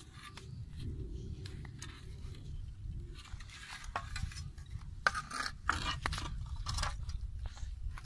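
Scattered scrapes and knocks of a shovel and hoe being picked up and handled, with shuffling footsteps on dirt and grass, over a steady low rumble.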